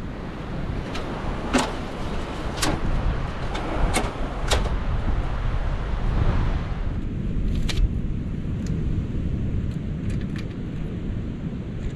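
Scattered clacks and knocks of camp gear being handled at the back of a 4WD: a rear drawer slid out, then a ladder set against the vehicle. All of it sits over a steady low rumble of wind on the microphone.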